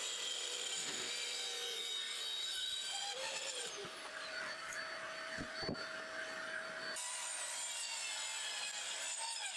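A saw cutting through a wooden board, a steady sawing sound that changes abruptly twice.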